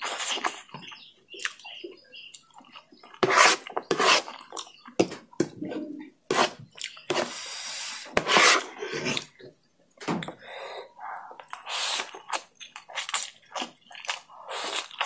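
Close-miked slurping and chewing of chilli oil noodles: a run of wet slurps of long noodle strands, with chewing between them.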